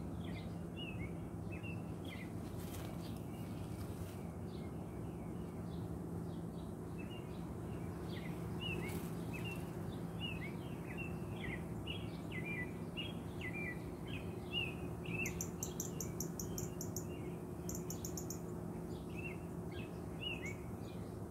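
Open hive of honey bees humming: a steady low drone from the bees on the frames. Small birds chirp over it throughout, and a fast, very high-pitched trill comes twice about three-quarters of the way through.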